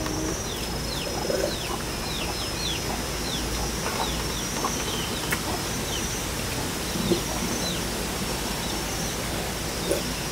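Small birds chirping in many quick falling notes over a steady high insect buzz, with a few brief low sounds now and then.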